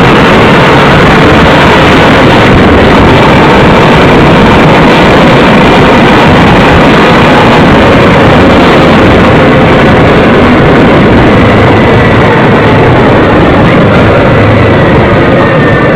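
Motorcycle engine running at speed with heavy wind rush, heard from on board the moving bike; loud and steady.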